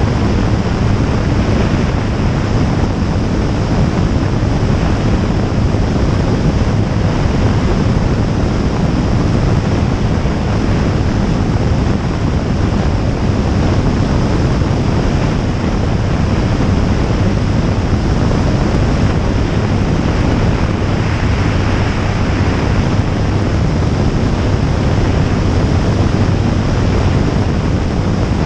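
Jabiru J160 light aircraft in flight: its four-cylinder engine and two-blade propeller running steadily under a heavy, constant rush of wind on an outside-mounted camera.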